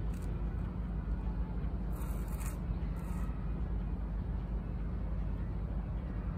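Steady low outdoor background rumble, with a few short scraping hisses near the start and about two and three seconds in.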